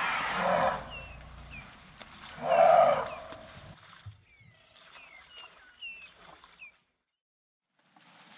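Elephant giving two loud, harsh calls a couple of seconds apart, the second louder, followed by small bird chirps. The sound then cuts to a second of silence before the next clip begins.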